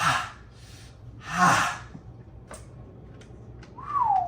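A person blowing out two short, hard breaths, then a brief vocal sound falling in pitch near the end. These are reactions to the cold, minty burn of a sports drink laced with mouthwash.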